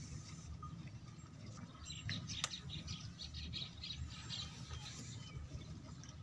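A bird chirping in a quick run of short notes, starting about two seconds in and lasting a couple of seconds, over a faint low background rumble; one sharp click about halfway through.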